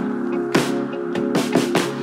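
Background music: an electronic track with sustained chords under a beat of sharp drum hits.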